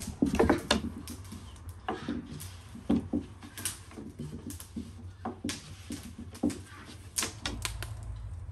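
Long thin wooden rolling pin clacking and knocking on a wooden table as thin baklava dough is rolled out by hand, in irregular sharp taps, busiest in the first second. Near the end a low steady rumble joins in, from a wood fire burning in a clay tandoor.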